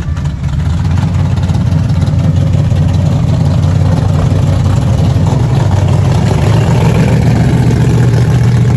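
Engine of a first-generation Chevrolet Camaro drag car running loud and low as the car rolls slowly past at close range, a little louder after the first second.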